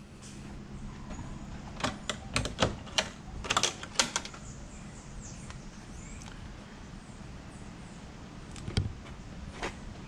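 Clicks and knocks of a dune buggy's rear engine lid being unlatched and lifted open, in a quick cluster about two to four seconds in, with another knock or two near the end.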